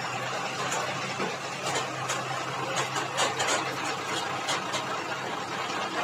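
Heavy diesel engines of road-paving machinery, an asphalt paver and a loaded tipper truck, running steadily with a low hum. Scattered light clicks and rattles sound over the engines.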